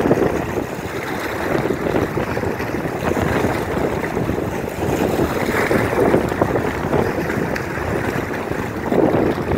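Strong lake wind buffeting the microphone in gusts, over the wash of choppy waves.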